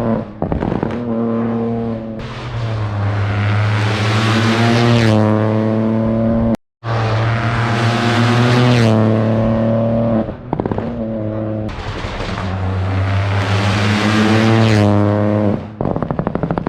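Rally cars at full throttle, the engine note climbing through the gears with a brief dip at each shift. The sound breaks off in a hard cut about seven seconds in, then another run climbs the same way. Near the end the engine note turns into a rapid stutter.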